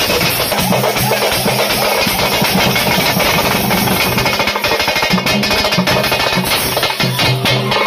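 Drum troupe playing a loud, dense rhythm on stick-beaten side drums and a large rope-tensioned bass drum, with hand cymbals clashing along.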